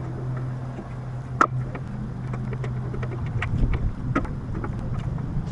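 Plug-in air conditioner running with a steady low hum, its capacitor tested and the unit blowing cold. Scattered clicks and knocks of its cover being handled and refitted.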